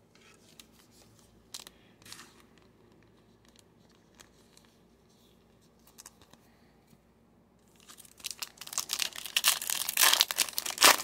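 Foil wrapper of a Topps Star Wars Chrome trading card pack being torn open and crinkled, a loud dense rustling that starts about eight seconds in and lasts some three seconds. Before it, faint clicks of chrome cards being slid through the hands.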